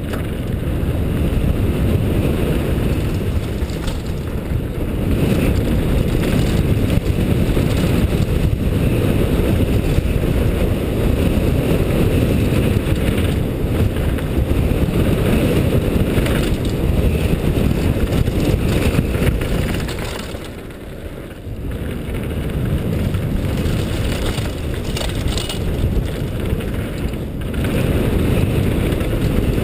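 Wind rumbling over a helmet-mounted GoPro and mountain bike tyres rolling over gravel and packed dirt during a fast downhill run. The noise eases for a second or two about two-thirds of the way through.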